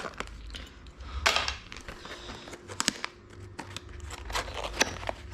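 Plastic packaging being handled, crinkling and rustling with irregular small clicks and knocks, the loudest about a second in and near the end, over a steady low hum.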